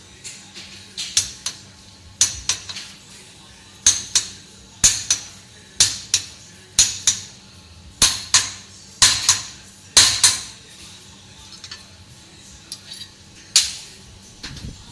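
A hammer striking the end of a metal spindle to drive it into its base: a string of sharp metallic blows with a short ring, often in quick pairs, one or two a second. The blows stop about ten seconds in, followed by a few lighter taps and one last hard blow near the end.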